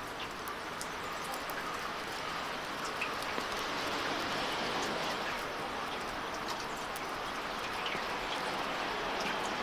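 Steady outdoor hiss with scattered faint ticks and a few short bird chirps.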